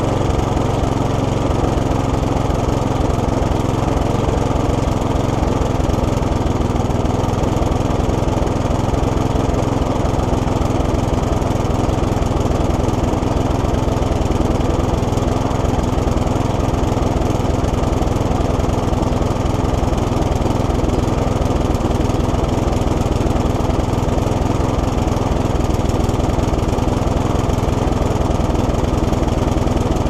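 Briggs & Stratton engine of a Mountfield SP480 Turbo petrol lawn mower running steadily at full throttle. It is chugging a bit, which the owner takes for a problem inside the carburettor, probably the diaphragm and gasket.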